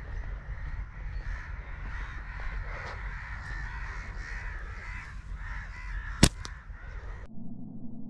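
Crows cawing, many calls overlapping, over a low rumble. A single sharp click comes a little after six seconds in, and about a second later the sound cuts abruptly to a quieter low hum.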